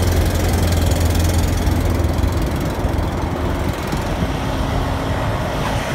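Cummins diesel engine in a Kenworth T680 idling steadily, run so that a fuel-line leak can be found. Its deep low drone weakens about two seconds in.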